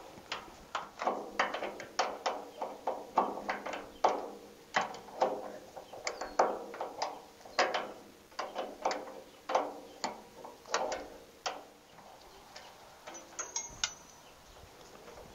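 Hand wrench working a rusted nut off the gas-tank clamp of a 1924 Fordson Model F tractor: a run of sharp metallic clicks, about two a second, that stops about twelve seconds in.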